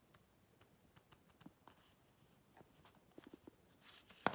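Quiet handling sounds of smartphones on a tabletop: a few faint clicks and taps, a short cluster of taps about three seconds in, a brief rustle, then one sharp knock near the end as a phone is flipped over and set down.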